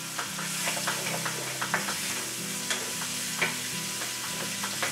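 Chopped red onions sizzling in hot oil in a stainless steel pan, stirred with a wooden spoon that scrapes and clicks against the pan many times. This is the start of the sauté for the gravy.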